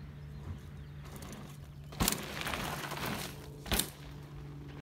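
Mountain bike rolling past on a loose dirt trail: tyre noise builds and fades as it passes, with two sharp clacks, about two seconds in and near the end, over a steady low hum.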